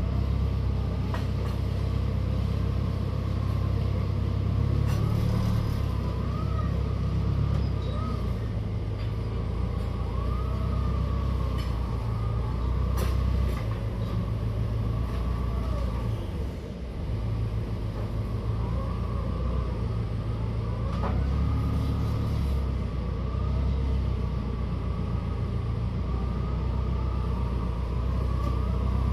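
Forklift engine running steadily with a low rumble, a light wavering whine riding over it.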